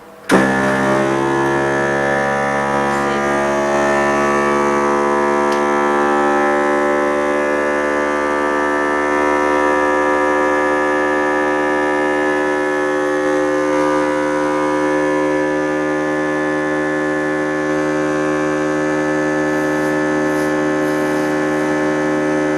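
A film-laminating machine on a phone-screen repair bench switches on suddenly and runs loud and steady, with a hum and whine of many unchanging tones.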